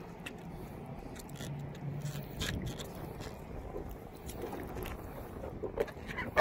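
Scattered light clicks and scrapes, with a faint low hum in the first two seconds and a single sharp knock right at the end.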